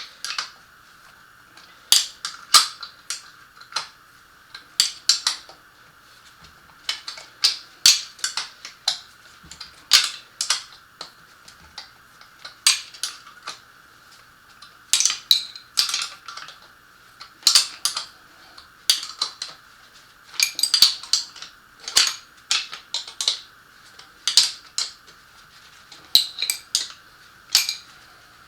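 Irregular metallic clinks and clanks of hand tools and parts being handled while taking apart an NP247 transfer case. A steady faint hum runs underneath.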